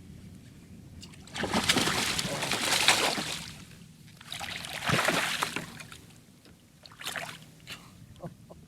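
Water splashing in two loud spells, one of about two seconds and then one of about a second: a hooked largemouth bass thrashing at the surface beside a kayak as it is landed.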